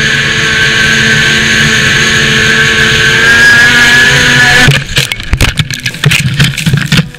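Snowmobile engine running at speed with a steady high whine that rises slightly. About four and a half seconds in, the steady engine sound breaks off into a jumble of knocks and thumps as the sled crashes.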